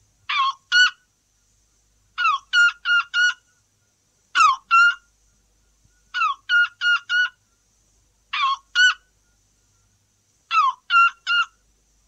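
A man's vocal imitation of the red-billed toucan's yelping call. Six groups of two to four loud, short yelps come in a row, each group opening with a note that slides downward.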